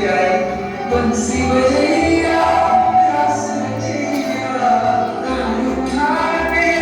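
Song playing, sung by several voices over a musical accompaniment with a steady bass.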